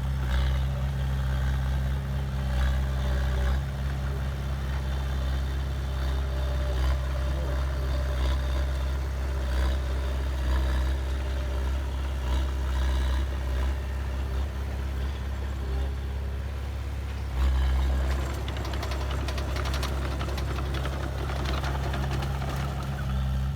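Heavy diesel engine of a bulldozer or dump truck running steadily with a low, even rumble. About three-quarters of the way through it gets louder for a moment and a rattling clatter joins in for several seconds.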